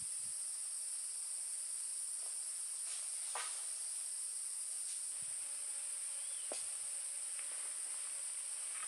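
Steady high-pitched drone of forest insects, with a few faint clicks and snaps scattered through it.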